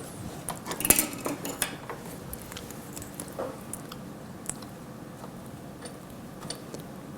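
Small clicks and clinks of hard plastic and metal parts being worked into place inside a dental cassette sterilizer, with a cluster of them about a second in and scattered ticks after.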